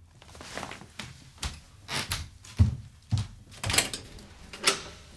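Footsteps on a wooden floor, then a run of irregular thumps and sharp clicks as a flat's front door lock and handle are worked to open the door.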